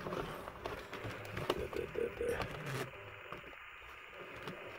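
Faint small clicks and light scraping of a hand handling model railway wagons on the track, busiest in the first three seconds and quieter after that.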